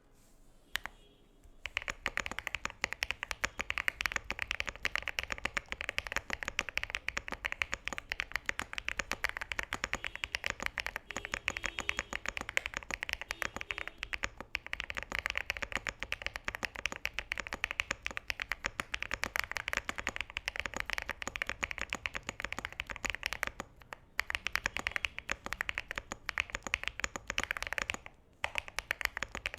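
Fast continuous typing on a Cidoo ABM066 mechanical keyboard with lubed MMD Princess linear switches and PBT keycaps: a dense stream of keystroke clacks that starts about a second and a half in, with short breaks near the end.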